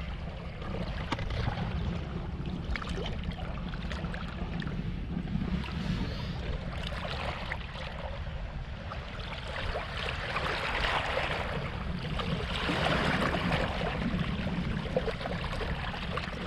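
Small sea waves washing against a rocky shore, their hiss swelling in a few surges. A steady low rumble of wind on the microphone runs under it.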